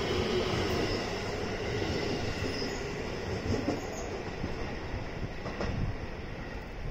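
JR West 223 series electric train pulling out of the station, wheels running on the rails with a faint steady motor whine, slowly fading as it moves away.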